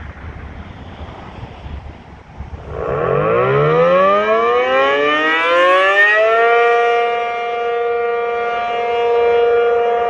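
ACA Penetrator-50 rotating tornado siren starting its attack signal. After a few seconds of wind on the microphone, it winds up in a rising pitch from about three seconds in and settles on a steady tone by about six and a half seconds. Its loudness then swells and fades as the horn rotates.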